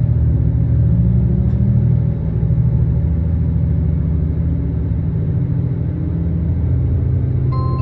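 Diesel engine of a JR Shikoku limited express diesel train pulling away, a steady low drone that climbs in pitch and drops back a step about two seconds in as it gathers speed.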